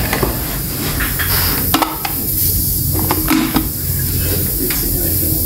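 A few light clicks and clinks of glass jars and dishes being handled on a kitchen counter, over a steady hiss and low hum.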